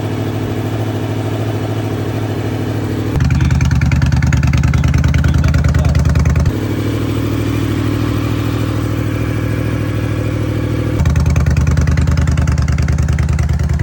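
Yamaha motorcycle engine idling steadily at an even pitch. It grows louder twice, for about three seconds each time.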